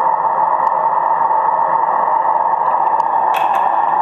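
Shortwave transceiver on the 15 m band in SSB mode giving out steady hiss, with no signal, between a DX station's transmissions. A couple of short clicks come about three seconds in.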